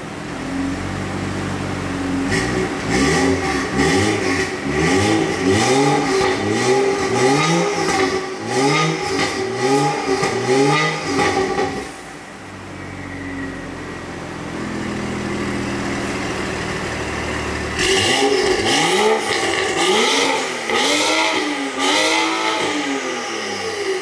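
BMW M235i's turbocharged 3.0-litre straight-six, heard through an Armytrix valved exhaust, free-revving in quick blips about once a second. A run of about ten blips a couple of seconds in, several seconds of steady idle, then another run of about six blips near the end.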